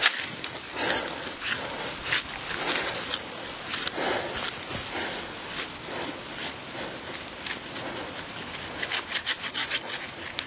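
Tall weeds and brush rustling and crackling as they are pushed through and pulled aside by hand, in irregular scratchy strokes with a quicker run of crackles near the end.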